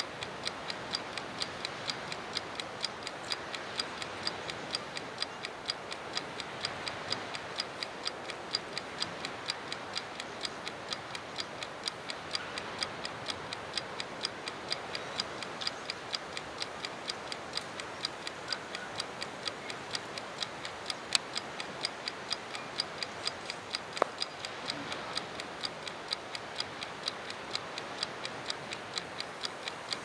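Clockwork rotating time-lapse camera base (Flow Mow) ticking steadily as it slowly turns the camera, about three even ticks a second, with a couple of louder single clicks past the middle.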